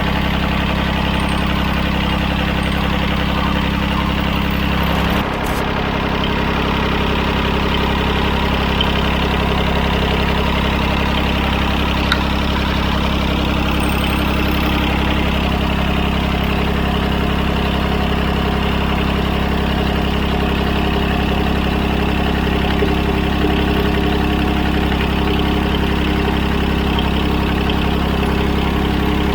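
Three-cylinder Yanmar diesel engine of an older John Deere tractor idling steadily, with a brief break in the sound about five seconds in.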